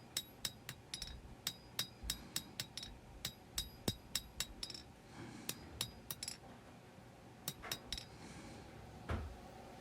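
Hand hammer striking a 52100 steel knife blade on an anvil while drawing down the bevels: quick sharp metallic clinks, about three to four a second in the first half, then shorter bursts with pauses and a last single blow near the end.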